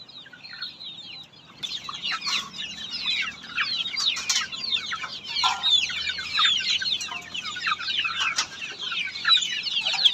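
A flock of black Australorp chicks peeping, many high chirps overlapping at once, growing louder about a second and a half in.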